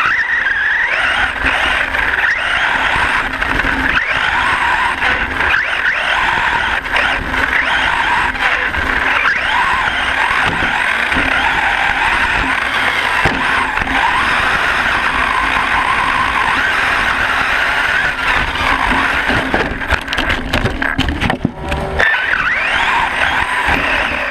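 Onboard sound of a Hyper 10SC 4x4 short course RC truck racing on dirt: the Castle 3800KV brushless motor and drivetrain whine, rising and falling in pitch with the throttle, over the clatter of tyres and chassis on the bumpy track. The sound drops briefly a few seconds before the end, then picks up again.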